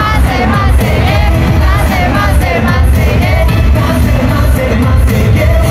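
Live K-pop concert: loud up-tempo pop music with a boy group's singing over the arena sound system, heard from the crowd.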